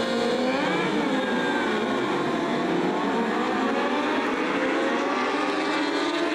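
Racing superbike engines running hard at high revs, the pitch rising and falling as the throttle opens and closes.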